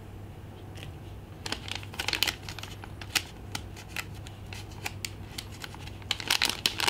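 Clear plastic zip bag crinkling and crackling as it is handled, in scattered sharp crackles that come thicker near the end.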